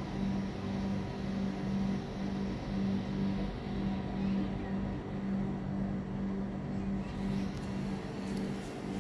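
Steady low machine hum that throbs at a slow, regular pace, with a few faint clicks near the end.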